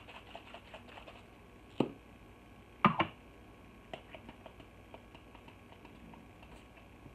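Pump bottle of Wet n Wild Photofocus setting spray: light ticking as it is handled in the first second, then two short spritzes of the pump about two and three seconds in, the second one louder. It gives a heavy mist.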